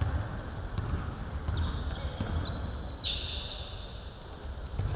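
Basketball dribbled on a hardwood gym floor, giving repeated low thumps, while sneakers squeak on the court. A short sharp scuff comes about three seconds in.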